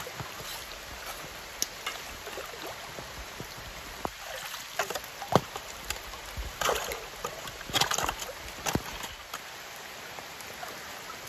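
A shovel digging in a shallow muddy stream: water splashing and sloshing, with sharp knocks and scrapes of the blade. The louder splashes come between about five and nine seconds in.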